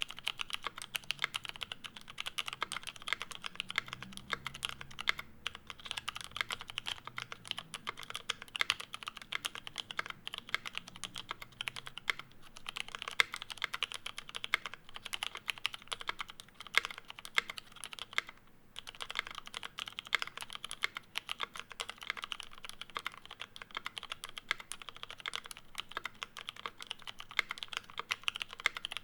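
Steady typing on a Bauer mechanical keyboard with a brass case, no sound dampening, lubed Cherry MX Brown tactile switches on an aluminium plate and GMK keycaps. It is a fast run of keystroke clicks, with a brief pause about five seconds in and another about eighteen seconds in.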